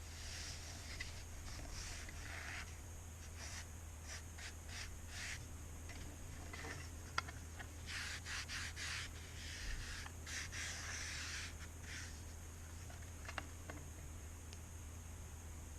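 Vintage Newman mechanical pencil handled close to the microphone: short stretches of rubbing and scraping with small ticks, and two sharp clicks, about seven and thirteen seconds in.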